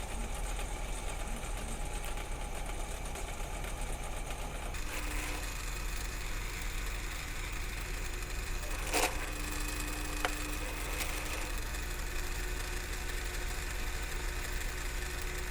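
Drill press motor running steadily while drilling into the steel tow ball, its sound changing about five seconds in, with a single sharp click around nine seconds.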